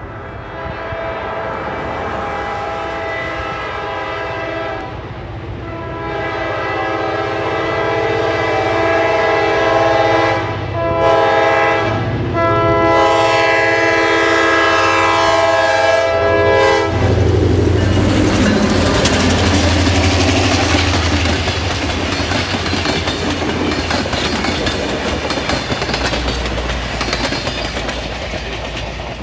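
Locomotive air horn blowing a sequence of long, long, short and long blasts as the train approaches, followed by the train passing close by: a low engine rumble with the coaches' wheels clattering over the rail joints.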